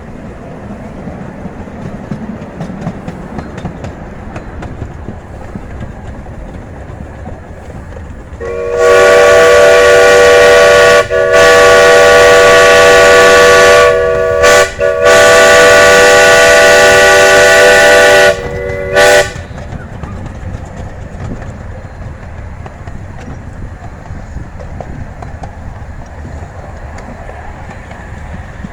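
Steam locomotive's chime whistle blowing a sequence of long and short blasts for about ten seconds, starting about eight seconds in, several notes sounding together as a chord. Under it the small train runs with a steady rumble and rail clatter.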